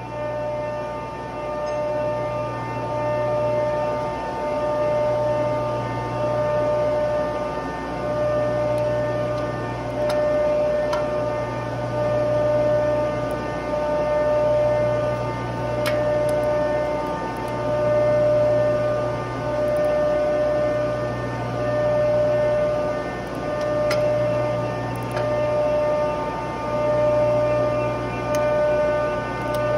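Steady hum of industrial machinery running, made of many held tones that swell and fade about every two seconds. A few faint metallic clicks come from a wrench on the flange bolts.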